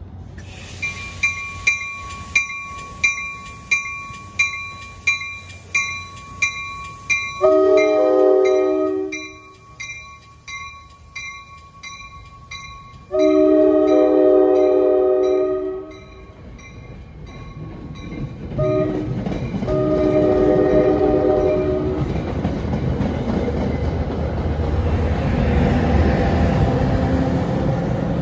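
A bell rings about twice a second. Then a diesel locomotive's multi-chime air horn sounds the grade-crossing signal: long, long, short, long. The train's engine and wheel rumble grows under the last blasts and carries on after them.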